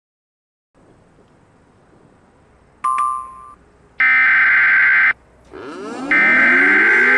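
Emergency Alert System SAME header: two loud bursts of screeching digital data tones, each about a second long and a second apart. A short electronic blip sounds about three seconds in over faint hiss, and rising electronic sweeps begin under the second burst.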